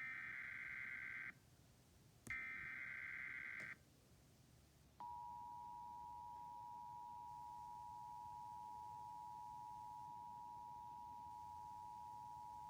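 Emergency Alert System broadcast tones: two short, screechy bursts of the digital SAME header, about a second apart, ending the three-burst header. About five seconds in, the steady two-tone EAS attention signal starts and holds to the end.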